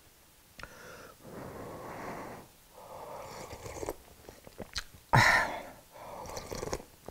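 A man slurping hot winter melon soup from a spoon in repeated breathy sips, the loudest a little past five seconds in, with a few faint clicks.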